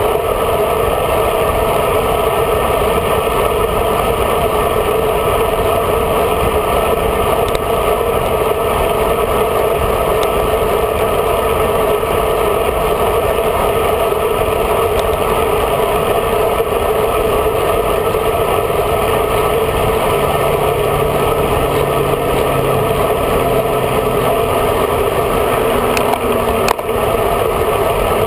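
Steady rush of wind buffeting a bicycle-mounted camera, mixed with tyre and road noise from riding at speed on a road bike.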